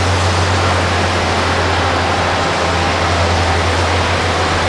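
Excavators' diesel engines running steadily, heard as a constant low rumble under a heavy, even hiss.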